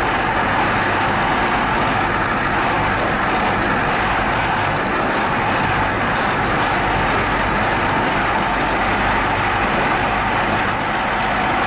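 Steady engine and road noise of a moving truck, heard from inside the cab, with a low hum underneath.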